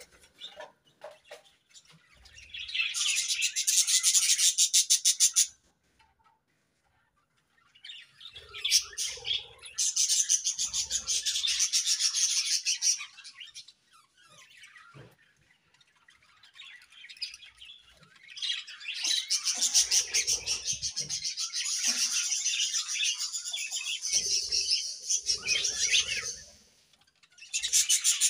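Budgerigars chirping in long bouts of rapid, high-pitched chatter, broken by short pauses.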